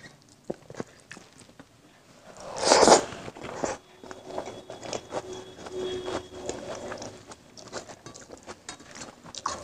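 Close-up sounds of eating rice and egg curry by hand: irregular wet chewing and mouth clicks, with fingers mixing rice on a steel plate. A louder, noisy swell builds and stops sharply about three seconds in.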